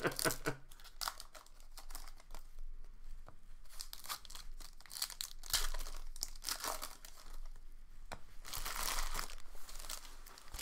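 Plastic wrappers of trading card packs crinkling and tearing as the packs are opened by hand, in irregular bursts with a longer stretch near the end.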